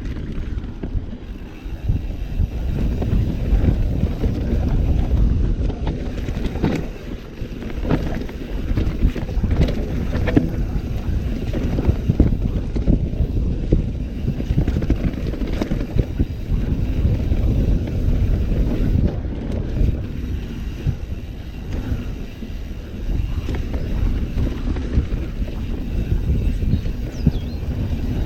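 Mountain bike descending a rough downhill trail: wind buffeting the microphone and tyres rumbling over dirt. Frequent knocks and rattles from the bike come as it goes over bumps.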